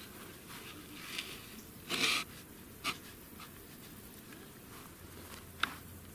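Plywood pieces scraping and clicking as they are slotted together by hand: a brief scrape about two seconds in, a click soon after, and a sharp click near the end.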